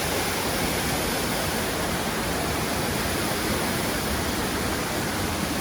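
Steady rush of fast-flowing water, an even, unbroken noise.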